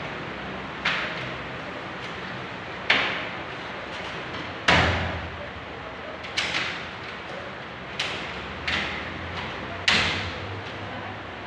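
Irregular sharp knocks and bangs of a window-type aircon unit being fitted into a steel window frame, about eight over the stretch, the loudest about halfway through, each ringing briefly in the room.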